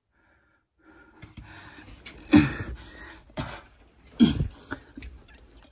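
A man coughing three times, about a second apart, with heavy breathing and faint rustling between, in a cramped cave passage.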